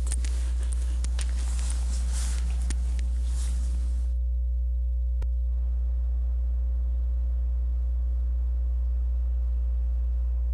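Steady low electrical hum on the audio feed. Faint rustling and small clicks sit under it for the first four seconds, then the background hiss drops away abruptly, leaving the hum alone apart from one sharp click a little after five seconds.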